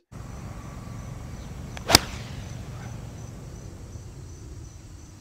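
A golf club striking a ball on a stinger shot: a single sharp crack about two seconds in, over a steady outdoor background hiss.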